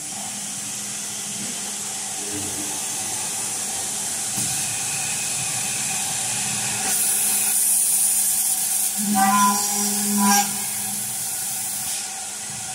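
CNC aluminium-profile milling and drilling machine running its program: a steady hiss over a low hum from the spindle and its air and coolant, growing louder about seven seconds in as the cutter comes down to the profile. A short two-part sound with a clear pitch comes in about nine seconds in.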